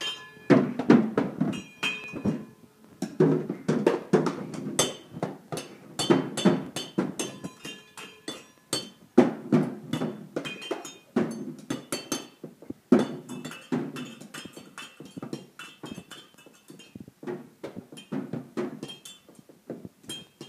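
A small child drumming with sticks on kitchen utensils: a steady stream of quick, uneven hits, dull thunks on a box mixed with clinking, ringing strikes on metal pot lids and bowls.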